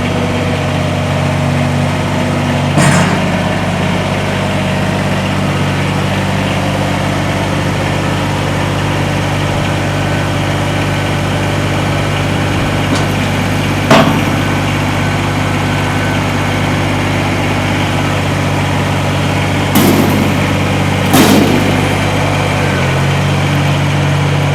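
Kubota BX compact tractor's three-cylinder diesel engine running steadily, with a few sharp metallic knocks, about four of them, spread through; the engine note shifts slightly near the end.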